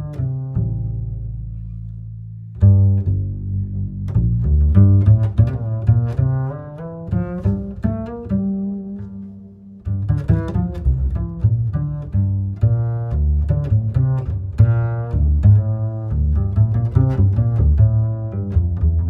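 Background music led by low plucked and bowed strings, a run of short bass notes with a brief pause a few seconds in and another near the middle.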